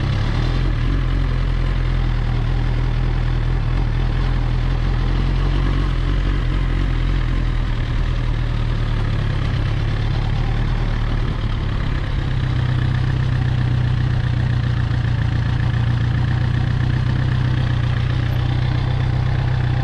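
Suzuki GSX-R 1000's inline-four engine running steadily at low revs, with no revving.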